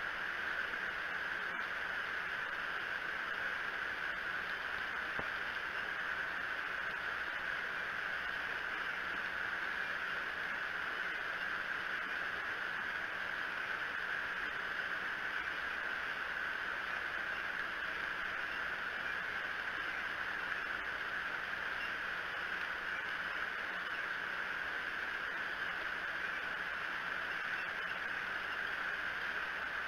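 Steady rain falling, heard as an even hiss through the outdoor nest-cam microphone.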